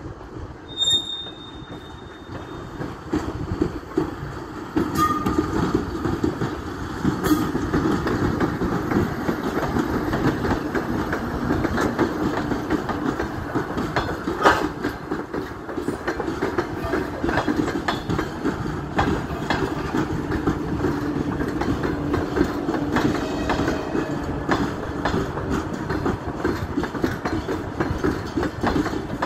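An EP2K electric locomotive and its double-deck passenger coaches rolling past, the wheels clattering and clanking over the rail joints. The rolling noise swells a few seconds in and then holds steady, with a short high tone about a second in.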